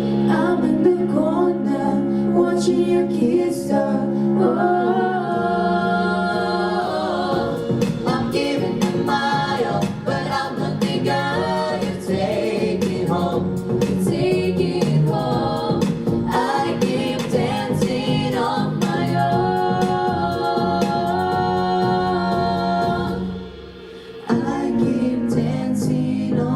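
Pop song playing: singing over a backing track, with a brief drop in level near the end before the music comes back.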